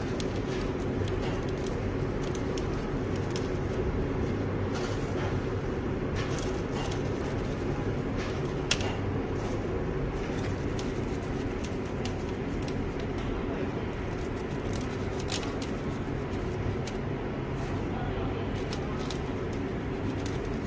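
A steady low mechanical hum of kitchen equipment, with light scattered ticks of crisp cereal pieces dropping onto glazed donuts and parchment paper.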